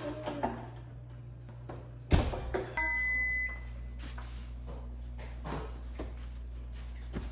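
Baking tray rattling onto a wall-oven rack, then the oven door shutting with a thud about two seconds in, followed by one short electronic beep from the oven's control panel. A steady low hum runs underneath.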